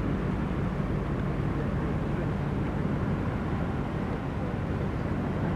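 A steady low rumble with a faint drone, as of distant heavy machinery.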